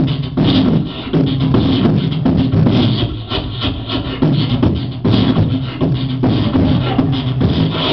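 Beatboxing: a performer making a continuous piece of music with a steady beat using only his mouth and voice into a microphone.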